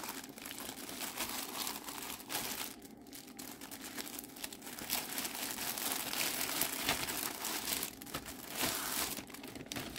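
Thin plastic poly mailer crinkling and rustling in the hands as it is handled and opened, with brief lulls.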